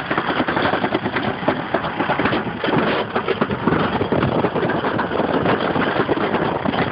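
Summer toboggan sled running fast down a stainless-steel trough track: a steady rumble with dense rattling clatter of the sled on the metal.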